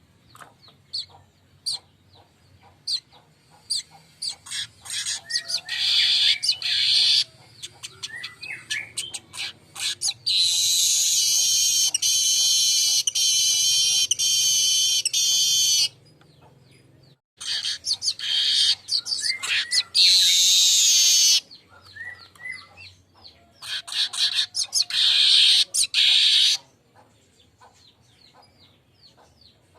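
Manyar weaver bird song: quick sharp ticking notes that speed up into long, loud, buzzy phrases, repeated several times, the longest lasting about five seconds. The sound drops out briefly about halfway through.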